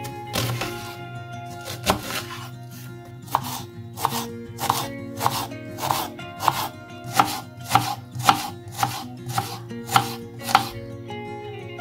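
Chef's knife chopping an onion on a wooden cutting board: a steady run of sharp knocks on the board, a little under two a second. Soft background music runs underneath.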